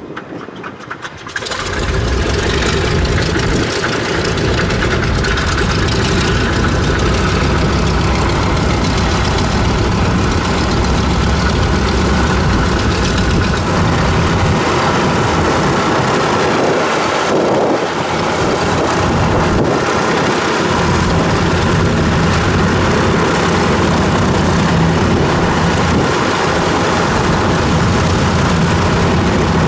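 Consolidated PBY Catalina's Pratt & Whitney R-1830 Twin Wasp radial engines starting: the first engine catches with a sudden jump in loudness about a second and a half in and settles into a loud, uneven running. The second engine is cranked and catches partway through, and both are running by the end.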